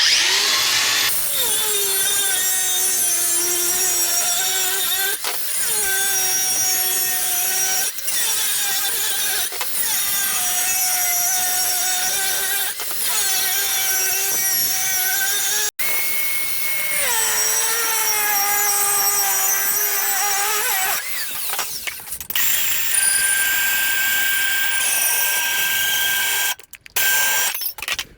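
Makita 5-inch cordless angle grinder with a new cutting disc cutting through 4 mm thick square steel section. A loud, steady whine sags in pitch every few seconds as the disc bites under load. It cuts out briefly about halfway through and changes tone in the last third.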